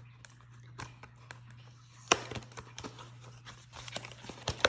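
Scattered clicks and light taps of a hair-tool box and its packaging being handled, with a sharp click about two seconds in and another near the end, over a steady low hum.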